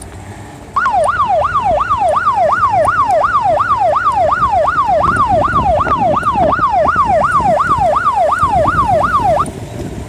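Electronic police siren in fast yelp mode, its pitch sweeping up and down about two and a half times a second. It drops out briefly at the start, comes back in under a second and stops shortly before the end, over vehicle engine and road noise.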